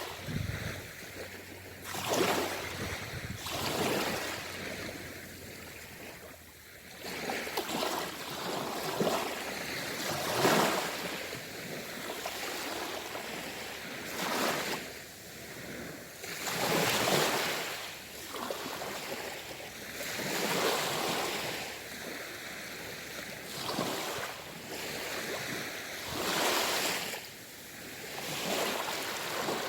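Ocean waves breaking and washing in, each surge swelling and falling back every two to four seconds.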